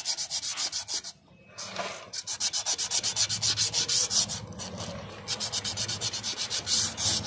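Emery paper rubbed by hand inside a motorcycle wheel hub's brake drum, in rapid back-and-forth strokes with a short pause about a second in. The sanding clears light scoring marks starting to form on the drum surface, a cause of brake noise.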